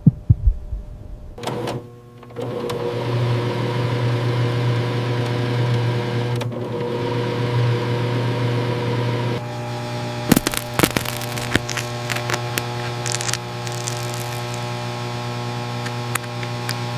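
Steady electrical machine hum with several fixed tones, starting about two seconds in after a few low thumps. It shifts about halfway through, and scattered clicks and ticks follow.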